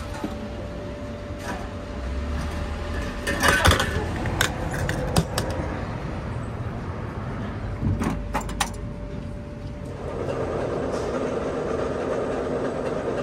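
Metal clacks and glass clinks as a glass bottle is taken from an old Westinghouse Coca-Cola bottle vending machine, loudest about three and a half seconds in, with a few more clicks near the middle. From about ten seconds in, a steady rumble of road traffic.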